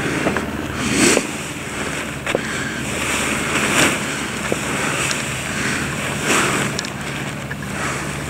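Nylon parachute canopy rustling in a series of swishes as it is gathered up in the arms, over steady wind noise on the microphone.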